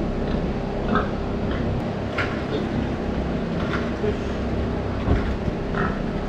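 Steady low mechanical hum of machinery in a pig barn, with a few brief sounds from the penned pigs now and then.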